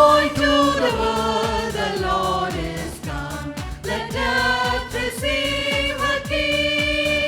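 Group of voices singing a Christian Christmas song in held, wavering notes over a backing track with a steady beat.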